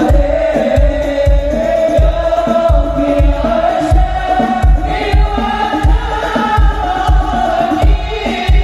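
A group of men singing sholawat together, a devotional Islamic chant in praise of the Prophet, over a steady drum beat of about two to three strokes a second, amplified through loudspeakers.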